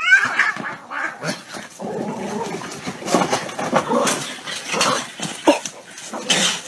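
A dog growling in a scuffle with a cat, rough and uneven.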